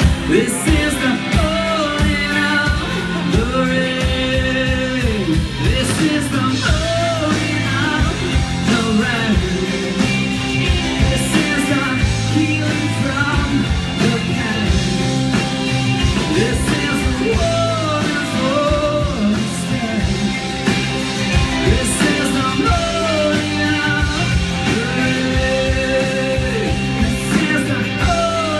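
Live rock band performing: a male lead vocal sings over electric guitar and bass guitar, heard from the audience through the club's PA.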